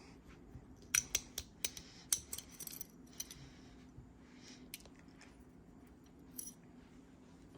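Sig Sauer P938 pistol's tight guide rod and recoil spring being worked out of the slide by hand with a small tool: small metal clicks and light scrapes, a run of sharp clicks between about one and three seconds in, then a few scattered ticks.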